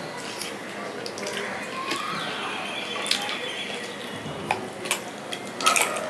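Close-miked wet eating sounds from a man eating chicken curry by hand: lip smacks and sucking at a chicken bone, heard as a scatter of short wet clicks over a steady background hiss, busiest near the end.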